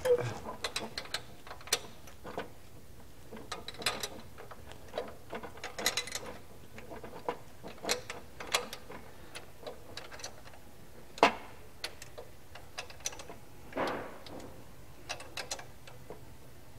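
Hand wrench clicking and clinking on the new carburetor's mounting flange nuts as they are snugged down on an air-cooled VW engine: irregular metallic ticks and short runs of clicks, with one louder clank about eleven seconds in.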